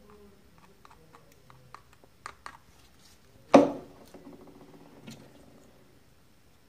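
Light clicks and taps of plastic heat-gun parts being handled, the fan and housing, with one loud sharp knock that rings briefly about three and a half seconds in and a softer knock about five seconds in.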